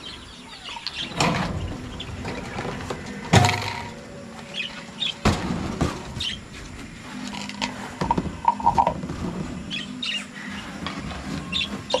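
Small birds chirping here and there, with a few sharp knocks and rattles from a wire-mesh cage being handled; the loudest knock comes a little over three seconds in.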